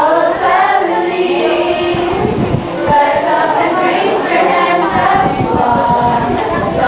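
A mixed group of teenage students singing a song together as a chorus, with some notes held.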